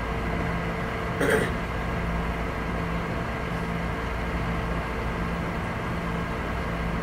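Steady mechanical hum with a few held tones, and one brief, louder sound about a second in.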